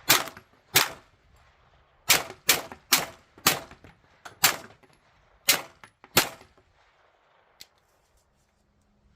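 Smith & Wesson FPC 9mm pistol-caliber carbine fired about nine times at an uneven pace, with pauses of under a second to about a second between shots. The shooting stops about six seconds in.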